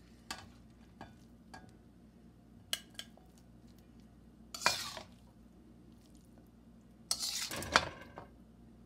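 Metal spatula scraping and tapping against a metal wok as cooked fried rice is scooped out into a glass bowl: a few light clicks, then two longer scrapes about four and a half seconds and seven seconds in.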